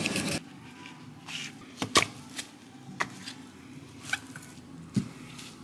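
Scattered light knocks and clicks of kitchen things being handled and set down, about six in all, the sharpest about two seconds in.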